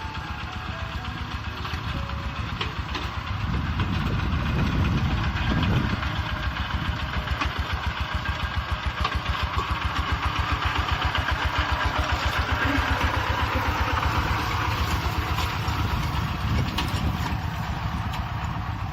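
Siam Kubota NC 131 single-cylinder diesel tractor engine running with a fast, even chugging beat. It grows louder for a couple of seconds about four seconds in, as if working harder or coming closer.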